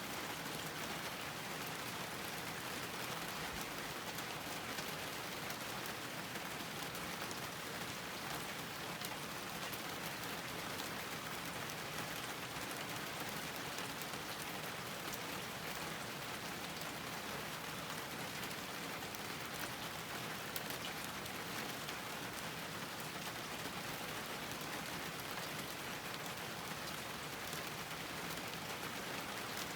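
Steady rain falling on a garden, an even hiss of many small drops pattering on surfaces with no let-up.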